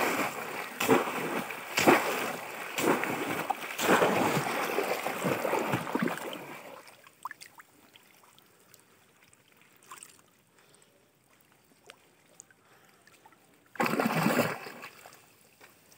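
Heavy splashing in shallow muddy water as a bamboo polo fish trap is worked: a string of loud splashes over the first six seconds or so, then only faint drips and trickles, and another short burst of splashing about fourteen seconds in.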